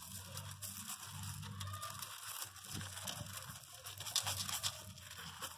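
Faint, irregular crunching and scraping of loose crushed stone under a pregnant Pinscher's paws as she turns about, nesting just before giving birth.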